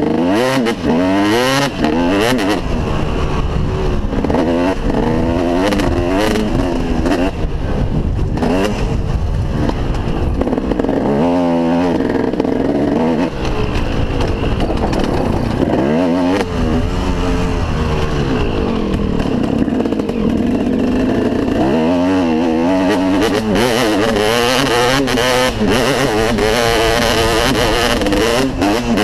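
KTM SX 250 two-stroke single-cylinder motocross engine under way on a dirt track, revving up and dropping back in pitch again and again as the rider accelerates and backs off.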